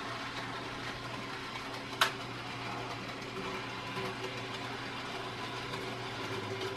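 N gauge model locomotive under DCC control running around the track, its small motor and wheels giving a steady hum, with a single sharp click about two seconds in.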